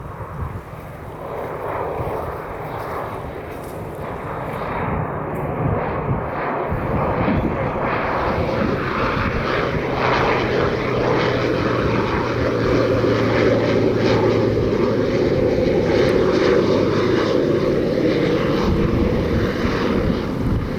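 Propeller-driven water-skimmer firefighting aircraft, its engine growing louder over the first several seconds and then running loud and steady with a dense rushing noise.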